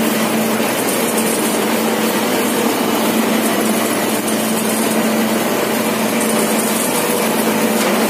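Mini dal mill machine running steadily: its motor and blower give a constant mechanical hum over an even rushing noise.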